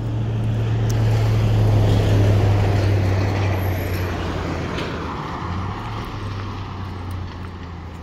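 A car passes close by on the road and drives away. Its tyre and engine noise swells to a peak about two seconds in, then slowly fades.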